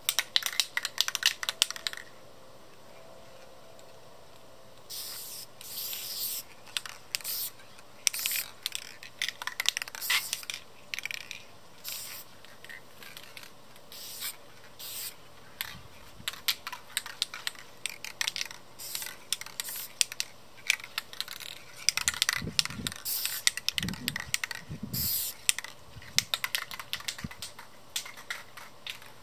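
Aerosol spray-paint can hissing in many short bursts as long black strokes are sprayed onto canvas. There is a cluster of sprays at the start, a pause of about three seconds, then quick strokes one after another.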